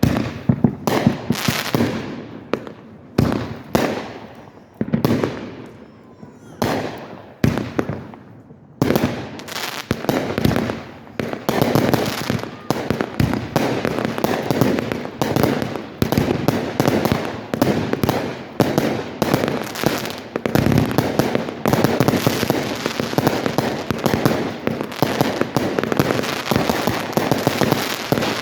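Aerial fireworks bursting: separate booms about once a second, each with a fading tail, then from about nine seconds in a dense barrage of rapid bangs and crackle that keeps up without a break.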